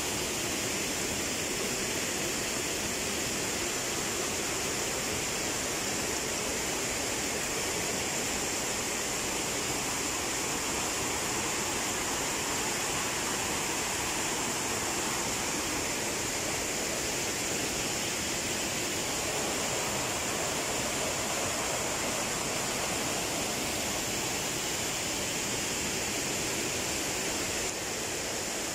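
Waterfall rushing steadily, an even, unbroken roar of falling water, dipping slightly in level near the end.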